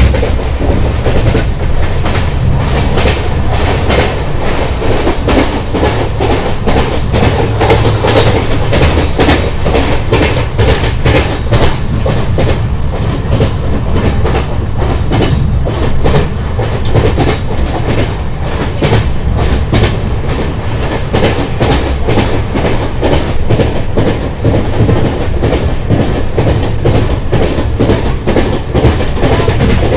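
Track sound of a moving LHB passenger coach, heard at its open window: a steady wheel-on-rail rumble with a dense, rapid clatter of the wheels over rail joints.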